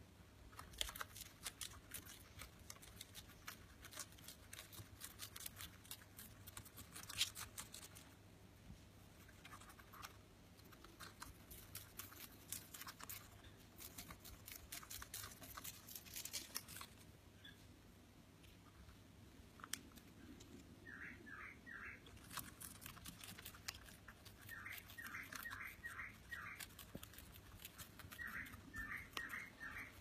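Lutino peach-faced lovebird tearing paper into strips with its beak, a faint run of crackling rips and rustles; the strips are nesting material, tucked into its rump feathers. In the second half it gives several quick series of short chirps.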